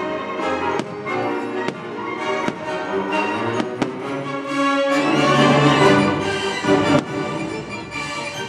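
Orchestral fireworks-show soundtrack with strings, swelling fuller about five seconds in, with a few sharp firework bangs over it.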